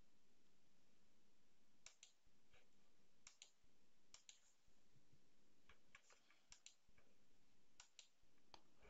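Faint computer mouse clicks, mostly in quick pairs, coming every second or so from about two seconds in, over otherwise near-silent room tone.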